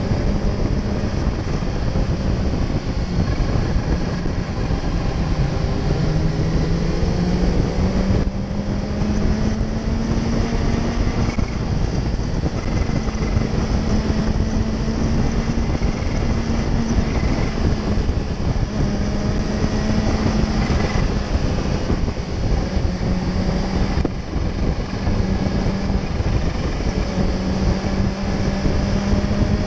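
Kawasaki sport motorcycle engine running under way, heard from the rider's position over heavy wind and road rush. The engine note rises in pitch for a few seconds about a quarter of the way in and otherwise dips and returns with the throttle.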